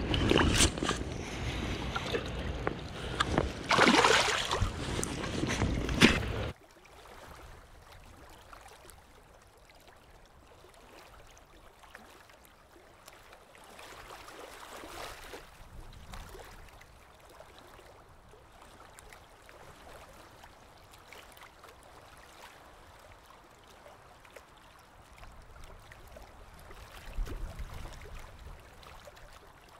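Loud, rough rushing and splashing of shallow river water close to the microphone for about six and a half seconds. It then cuts off abruptly to the faint, steady flow of a small river.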